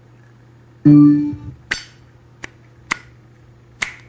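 Zippo lighter being handled: a loud, ringing metallic clink about a second in, followed by four sharp clicks.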